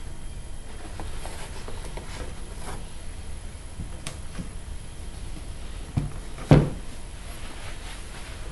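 Faint handling clicks, then two knocks about half a second apart a little past the middle, the second louder: something being set down or bumped on a hard surface.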